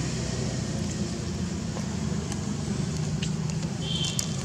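Steady low rumble with a few faint clicks, and one brief high chirp about four seconds in.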